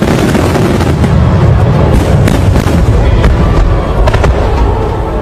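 Aerial fireworks bursting in quick succession: a dense run of bangs and crackles over a continuous low rumble.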